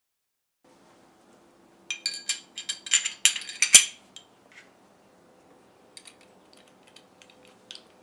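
Small hard object being handled in the hands, making a rapid run of sharp clicks and clinks about two seconds in, the loudest near the end of the run, then a few lighter, scattered clicks.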